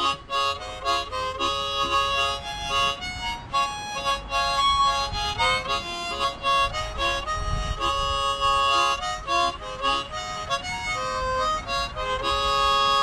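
Harmonica played solo: a melody of quick changing notes and chords, settling on a long held chord near the end.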